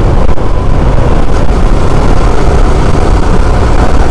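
Sport motorcycle riding along at a steady pace: the engine running mixed with heavy wind rush on the microphone, a steady, loud low noise.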